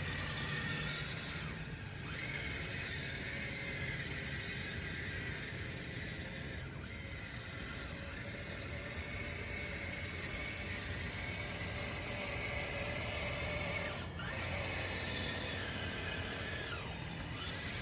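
RC bulldozer's small electric drive motors and gearboxes whining steadily as it works, with brief dips several times.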